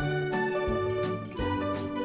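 Instrumental background music: held pitched notes over a steady beat.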